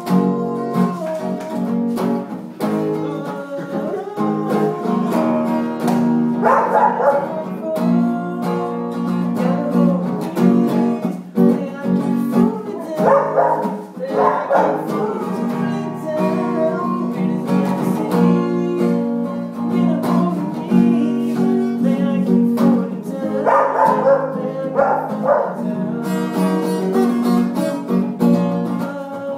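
Background music led by a plucked guitar, with sustained notes and a steady low accompaniment.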